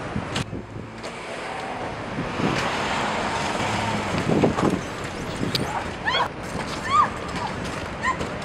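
A car passing on a street at night, its tyre and engine noise swelling over a few seconds, followed by several short high chirps near the end.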